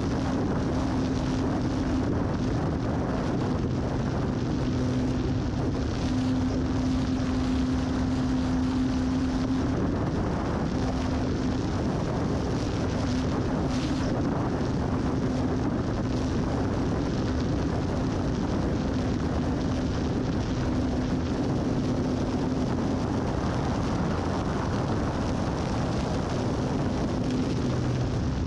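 Electric RC airplane in flight, heard from a camera under its wing: a steady rush of wind over the microphone with the low hum of the motor and propeller, which wavers slightly in strength.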